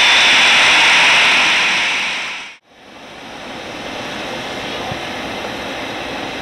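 Heavy rain hissing steadily, fading out about two and a half seconds in; after a moment of silence a quieter, steady rush fades back in.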